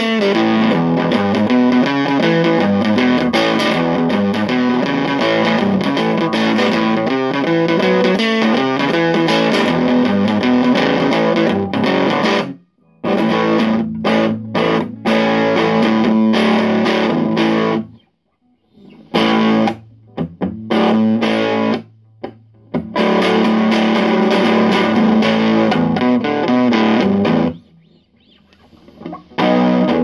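Electric guitar played through a Fuzz Face clone fuzz pedal into a Marshall combo amp, giving a thick distorted tone as riffs and chords are played. The playing stops briefly a few times in the second half.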